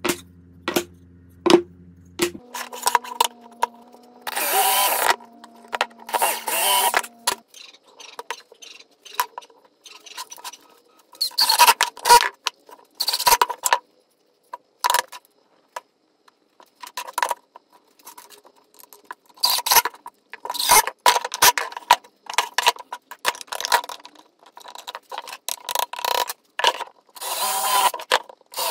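Workshop handling sounds: plywood parts clattering and knocking on a wooden workbench as they are picked up, set down and fitted together, with a few short bursts of power-tool noise.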